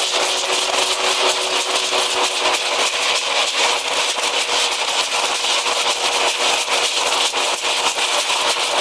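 Hazelnut thresher running steadily, a fast dense rattle of hazelnut clusters and husks being fed through it over a steady machine hum.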